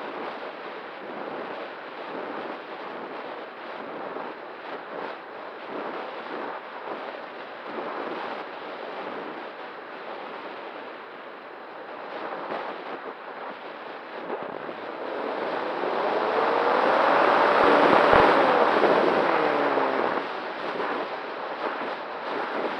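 Wind rushing over the microphone of an E-flite Night Radian RC glider in flight, gusty throughout. About two-thirds of the way through it swells much louder for a few seconds, with a whine that rises and falls in pitch, typical of the glider's electric motor being run up and eased back.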